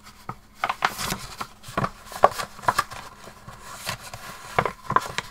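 Folded patterned paper being rustled and crinkled by hand as the creases of a small paper bag are opened out, giving a run of irregular crisp crackles.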